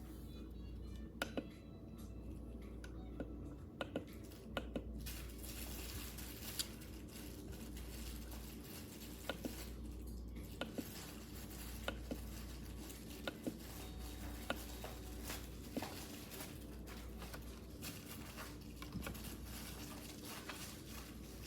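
Scattered light clicks and taps, as of objects being handled, over a steady low hum.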